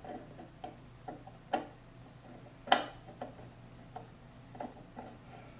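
Scattered light clicks and knocks of pliers and the pump's plastic impeller being handled on a wooden workbench while the impeller is fitted to the motor shaft, with one sharper knock about three seconds in.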